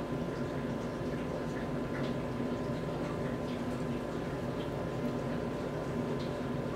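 Steady machine hum with a constant tone, with a few faint scattered ticks.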